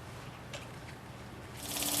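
Faint garage hum, then about one and a half seconds in a power tool starts and grows louder: a steady whine with hiss over it, typical of work on the lift kit's bolts.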